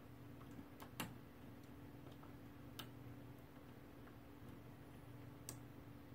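Faint, scattered metallic clicks of a hook pick and tension wrench working inside a doorknob's pin-tumbler lock, the sharpest about a second in.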